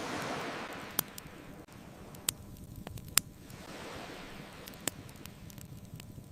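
Bonfire crackling with a few sharp pops, the loudest about three seconds in, over ocean waves washing in and drawing back: one wave swells at the start and another about four seconds in.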